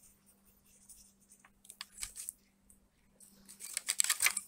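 Paper note rustling and crinkling as it is handled, with a few light clicks and scrapes; the handling noise is loudest near the end.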